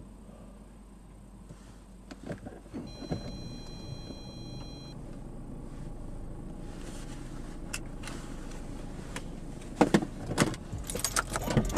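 Sound inside a stopped car: a low steady rumble with scattered clicks and knocks, an electronic beep held for about two seconds starting about three seconds in, and louder knocks near the end.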